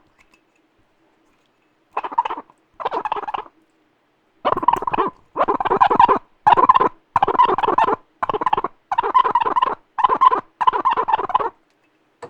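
A cup being rubbed by hand, squeaking in short 'kyu-kyu' strokes: after about two seconds of quiet, about ten squeaks of roughly half a second each follow one after another. It is the squeak of wiping a cup clean.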